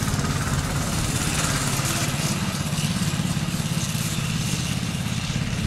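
Go-kart's small pull-start gasoline engine running steadily as the kart is driven.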